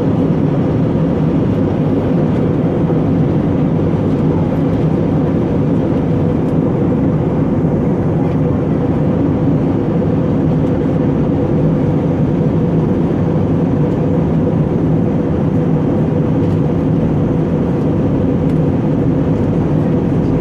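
Airbus A320 passenger cabin noise: the steady drone of the jet engines and airflow, with a few low steady hums running through it.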